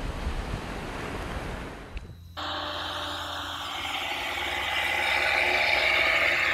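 Waves washing on a beach, cut off abruptly about two seconds in. Then the steady whine of a radio-controlled toy tractor's small electric motor and gearbox as it drives, slowly growing louder.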